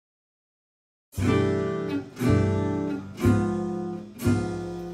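Intro music: guitar chords strummed about once a second, each one ringing and fading, starting about a second in.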